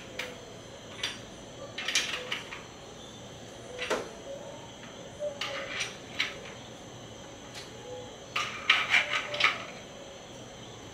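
Small metal parts and tools clinking and knocking as they are handled during bike assembly. The clicks come singly every second or two, with a quick run of several near the end.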